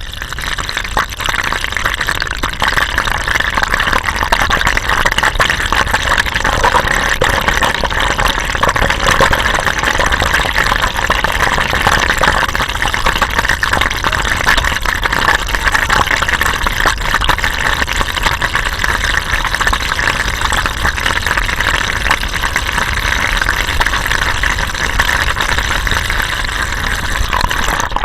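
Steady rush of water running from a tap, filling a rubber glove.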